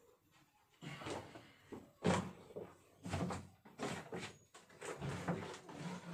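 A person moving about and rummaging, bending to search through things for a file: a string of irregular knocks and rustles about once a second, with the sharpest knock about two seconds in.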